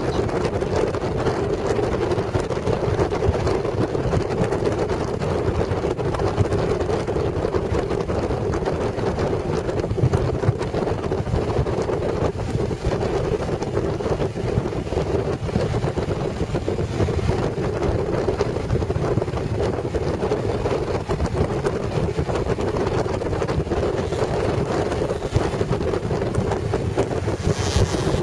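Wind rushing over the microphone of a motorcycle cruising at steady speed, with a steady engine hum underneath. The hiss grows brighter near the end.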